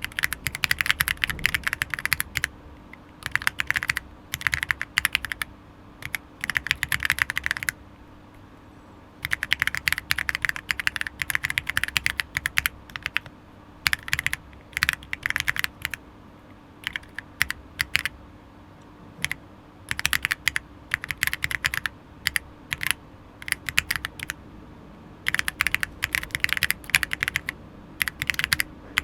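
Typing on a gasket-mounted Monka 6067 aluminium mechanical keyboard with Akko CS Jelly White linear switches: quick runs of keystrokes broken by short pauses of about a second, with a faint steady hum underneath.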